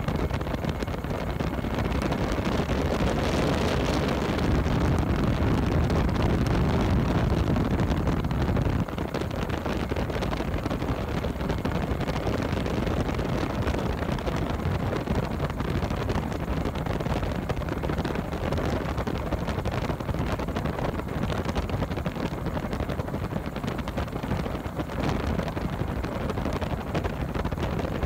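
Gyrocopter in flight: a steady rush of engine and airflow noise with wind buffeting the microphone. The level drops slightly about nine seconds in.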